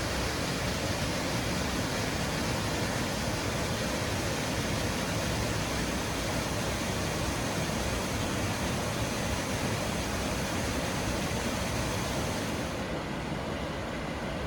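Steady, even rush of a wide waterfall pouring over a basalt ledge. Near the end the highest hiss drops away and the sound grows slightly softer.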